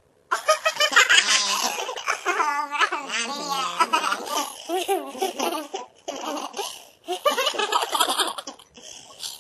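Girls laughing hard in high, wavering giggles, breaking off briefly about six seconds in and then laughing again.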